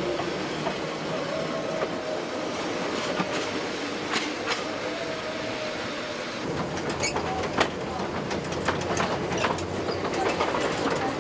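1924 German-built single-car electric trolley running along its track. A faint whine is held over the running noise at first; from about six seconds in, a heavier on-board rumble sets in, with the wheels clicking over the rail joints.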